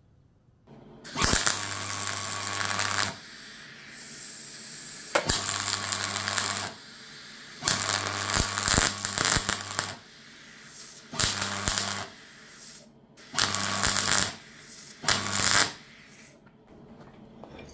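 Electric arc welding in six short runs, each one to two and a half seconds long, an even hiss over a steady low hum that starts and stops abruptly: filling a hole around a bolt with weld.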